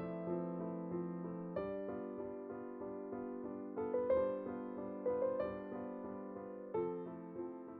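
Soft background piano music: slow, sustained notes and chords that change every second or so, fading gently toward the end.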